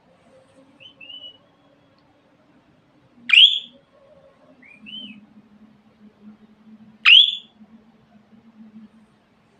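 Budgerigars calling: two loud, sharp rising chirps about four seconds apart, with a few softer short chirps between them, over a faint low hum.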